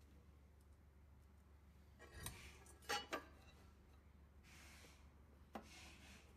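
Faint hand-tool handling: a screwdriver and screw clinking against the exerciser's cover plate, with a few sharp clicks about two to three seconds in, then soft scraping and one more click near the end.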